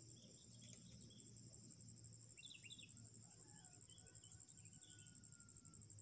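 A steady high-pitched insect trill, rapidly pulsing without a break. A few faint short bird chirps sound over it, clearest about two and a half seconds in.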